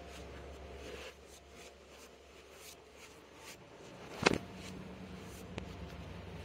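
Quiet indoor room tone with a steady low hum and faint taps, broken by one sharp knock about four seconds in and a lighter click about a second after it.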